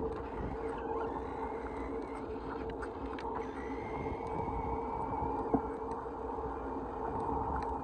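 Battery-powered ride-on toy motorcycle running across a concrete sidewalk: a steady whine from its small electric motor and gearbox, over wheel rumble. A single sharp click comes about two-thirds of the way in.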